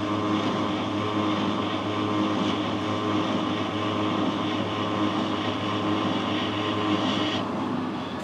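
Metal lathe running while a grooving tool cuts a groove into a case-hardened steel pin. The hard outer case makes the cut slow and difficult. A steady machine hum with a higher cutting hiss that drops away about seven seconds in.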